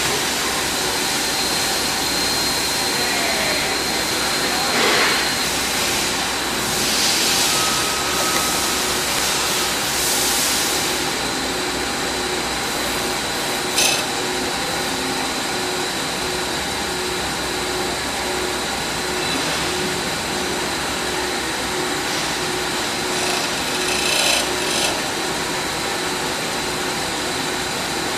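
Profile knife grinder running while the knives on a cutterhead are ground against its wheel: a steady machine hum and hiss, with stretches of brighter grinding noise and one sharp click about halfway through.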